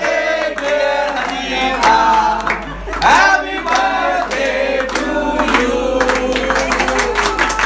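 A group of people singing a birthday song together, with hands clapping along.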